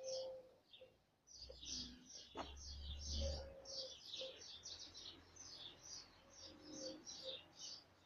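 Small birds chirping in quick succession, many short high chirps a second, faint. A low rumble and a single click come in about two to three seconds in.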